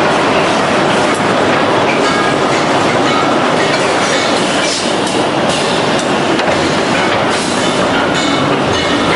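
FK-610BL semi-automatic finger joint machine running, a loud, steady mechanical noise with faint irregular knocks over it.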